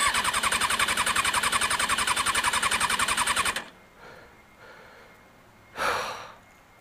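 Electric starter cranking a 2003 Kawasaki ZX-6R 636's engine in an even, rapid chatter for about three and a half seconds without it catching, then stopping abruptly: the no-start the rider later blamed on the tripped tip-over sensor after the drop. A short rush of noise follows near the end.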